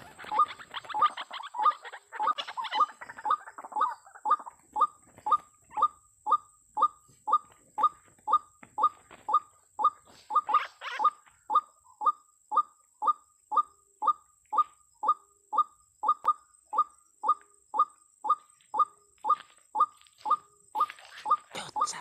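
White-breasted waterhen calls: a monotonous run of short repeated notes, about two and a half a second, without a break. In the first few seconds there is a flurry of wing-flapping and rustling in dry leaves as a snared waterhen thrashes, with shorter rustles near the middle and the end.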